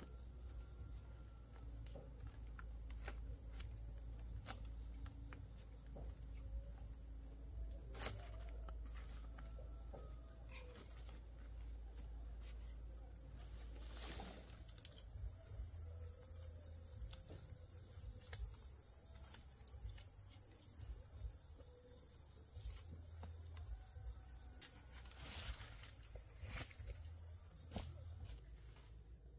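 Insects keeping up a steady, high-pitched drone that cuts off shortly before the end, with scattered light clicks and knocks over it.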